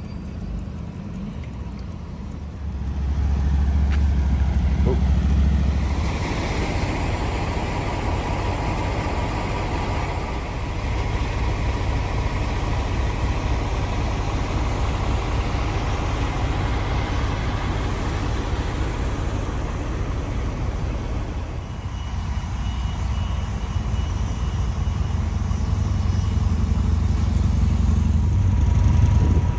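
Steady rumble of motor vehicle engines with outdoor noise, getting louder about three seconds in.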